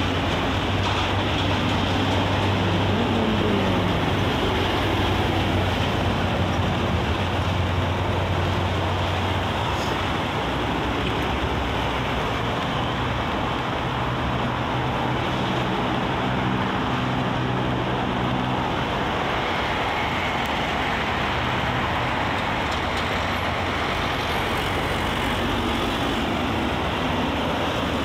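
Steady traffic noise from a busy multi-lane expressway: tyres and engines of cars, vans and trucks passing. Low engine hums of heavy vehicles come and go, and one engine note drops in pitch as a vehicle passes, about three seconds in.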